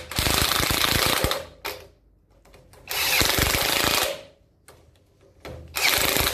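Impact driver hammering a socket onto the top swivel-pin bolts of a swivel housing, in three bursts of about a second each. It is tightening the bolts down on the shims to set the swivel preload.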